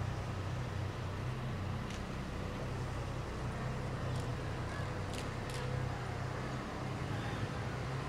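A steady low engine hum, like a motor vehicle running, with a few faint short clicks over it.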